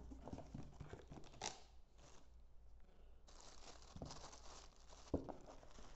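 Faint rustling and crinkling of a cardboard box and a plastic bag being handled during unpacking, with a few soft knocks.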